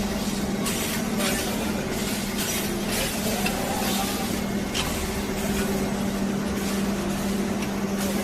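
Factory machinery running: a steady low hum under a hiss that swells and fades every second or so.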